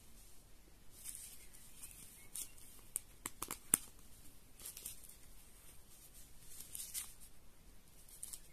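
Plastic phone cases and paper packaging handled by hand: faint rustling now and then, with a quick run of small sharp clicks about three to four seconds in.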